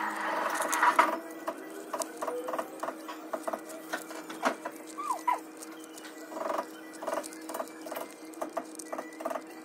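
Enamelled copper magnet wire rustling and scraping in short, irregular bursts, with brief squeaks, as coils are pressed by hand into the insulated slots of an electric motor stator during rewinding. A faint steady hum runs underneath.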